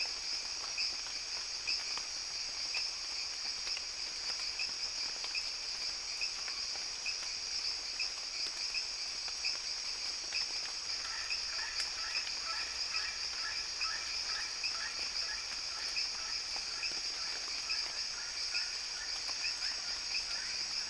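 Tropical rainforest ambience: a dense, steady, high-pitched insect chorus with a chirp repeating about twice a second. About halfway through, a frog's rapid stuttering call joins in and carries on to the end.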